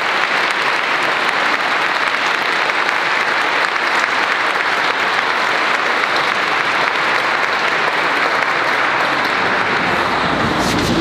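Audience applauding steadily, a dense even clapping with no singing over it.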